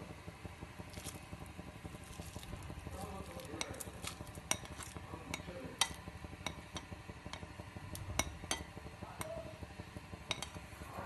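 A ladle scraping and tapping against a glass bowl as shredded chicken is pushed off into a pot of stock: scattered light clinks over a faint low rumble.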